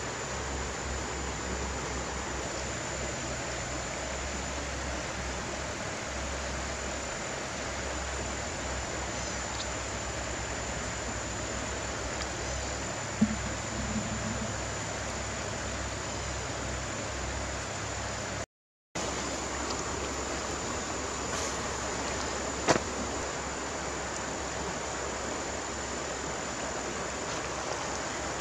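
Steady rush of flowing river water, with a couple of sharp clicks about halfway and again about two-thirds of the way in. The sound cuts out for an instant just past the middle.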